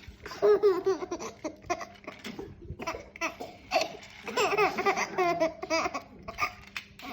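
A baby laughing in two bouts of giggles.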